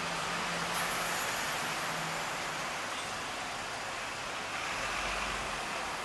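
Steady street traffic noise: a continuous wash of passing vehicles, with a faint engine hum in the first couple of seconds.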